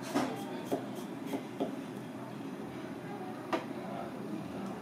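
Kitchen knife chopping through a cucumber onto a plastic cutting board: several sharp knocks in the first two seconds and one more about three and a half seconds in, over steady background noise.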